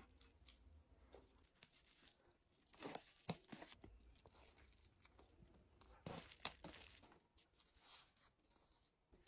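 Faint eating sounds: food torn by hand and chewed, with a few louder tearing or crunching noises about three seconds in and again about six seconds in.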